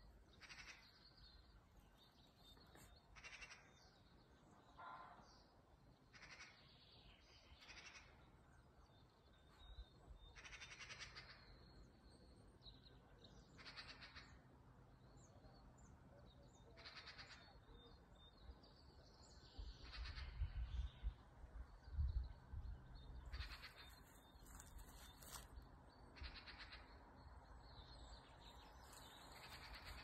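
Quiet woodland with faint bird calls, and short rustles every second or two as a dog moves about and sniffs in dry fallen leaves. A few low rumbles about two-thirds of the way through are the loudest sounds.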